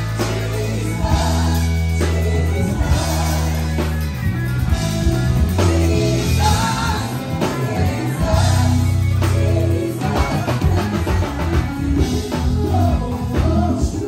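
A live band playing an upbeat praise song with singing, the Fender electric bass loud and up front, with long held low notes that step from pitch to pitch over the drums.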